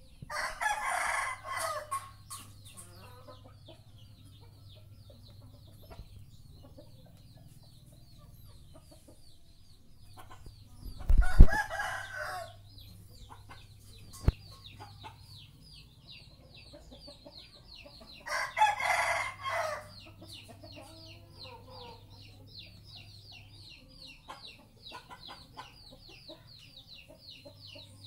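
A rooster crowing three times, each crow about two seconds long and coming roughly every eight seconds, with a fourth crow beginning at the very end. Under the crows runs a faint, high, rapid ticking. There is a short low thump during the second crow.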